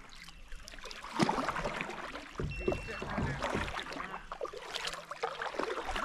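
Double-bladed kayak paddle dipping into river water, with irregular splashing and dripping from the blades on each stroke; the splashing starts about a second in.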